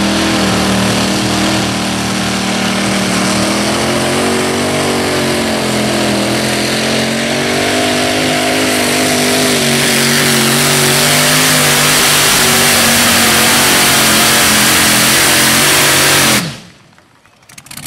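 Engine of a modified tractor-pulling machine running hard at high revs under load while it pulls the weight sled, a loud steady drone whose pitch rises slightly in the first second. The sound cuts off abruptly near the end.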